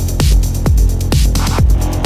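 Electronic background music with a steady beat, a kick drum landing about twice a second.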